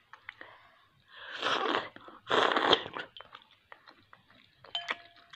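Close-up eating sounds from a mouthful of fish and moringa soup: two loud noisy bursts of mouth noise, then small clicks. Near the end a metal spoon clinks against the bowl with a short ring.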